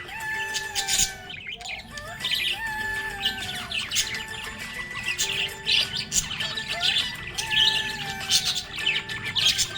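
Budgerigars chirping rapidly and continuously, over background music with long held notes.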